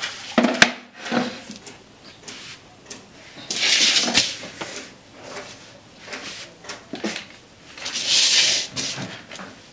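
Scattered sharp knocks and clatters of a metal cooking pot and wooden paddle being handled, and two loud rustles, about four and eight seconds in. The second rustle is a plastic bag being handled.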